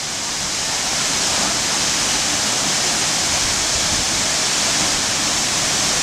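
Waterfall pouring into its plunge pool: a steady, hissing rush of falling water that grows slightly louder over the first second, then holds.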